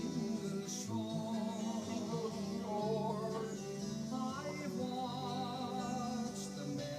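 Music playing: a song with acoustic guitar and a man singing.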